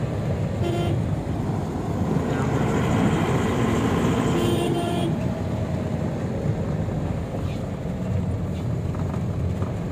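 Steady engine and road noise of a car driving on a mountain road, heard from inside the cabin.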